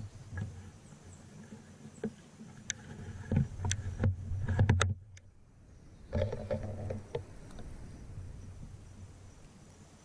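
Handling noise from a shotgun with a camera mounted on its barrel being shifted and aimed: low rubbing and rumbling with scattered sharp clicks and crackles, loudest about three to five seconds in.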